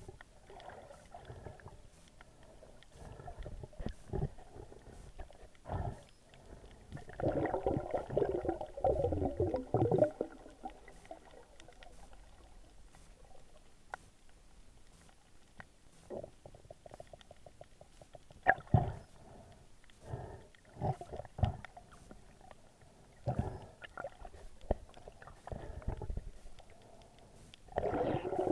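Muffled underwater sounds picked up by a camera held under the water: bubbling and water movement, with irregular knocks and clicks. A longer stretch of bubbling comes about a third of the way in and again near the end.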